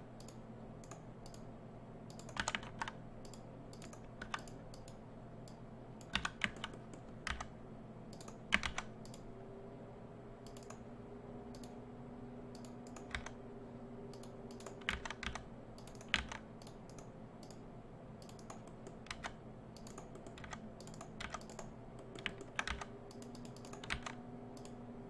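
Computer keyboard keys and mouse buttons clicking in scattered single taps and short clusters as the user works in 3D modeling software, over a steady low hum.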